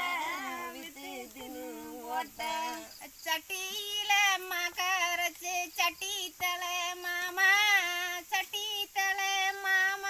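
Women singing a kummi pattu, a Tamil folk song sung during farm work, in a high voice that holds long, wavering notes.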